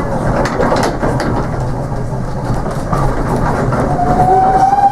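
Steam railmotor running, heard from aboard, with a steady rumble and the clatter of wheels over rail joints. About four seconds in, a steam whistle starts: one high, steady note that rises slightly as it opens and holds.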